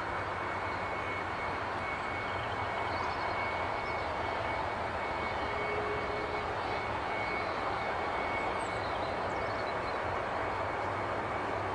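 Jet airliner engine running steadily: an even rush with a constant high whine.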